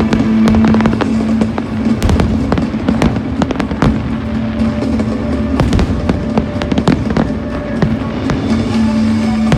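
Fireworks bursting in rapid, irregular bangs and crackles over loud show music that holds a sustained low note.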